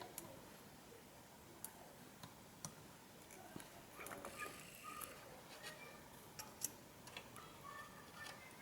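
Near silence with faint, irregular small clicks and taps, about a dozen, the sharpest about two-thirds of the way through.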